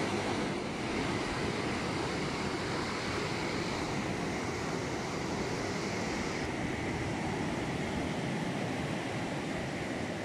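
Ocean surf and wind: a steady wash of noise, with a higher hiss that drops away about six seconds in.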